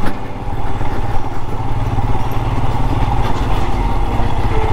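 Royal Enfield Himalayan's 411 cc single-cylinder engine running steadily as the motorcycle rides over a rough dirt road.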